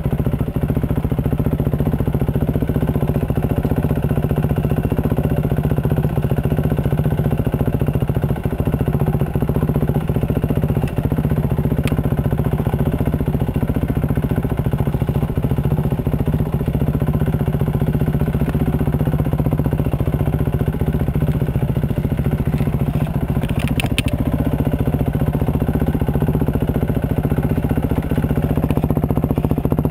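Yamaha dirt bike engine running at a steady, even pace as it is ridden over rough ground. A few brief clicks come about two thirds through.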